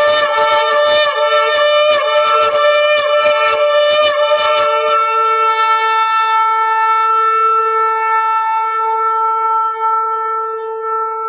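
Shofar (ram's-horn) blowing: a run of short, rapid staccato blasts, about three a second, then about five seconds in a single long, steady held note.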